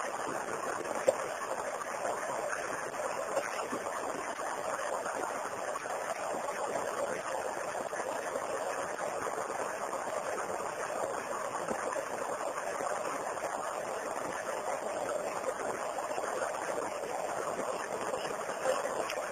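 Steady rushing background noise with no speech, and one sharp click about a second in.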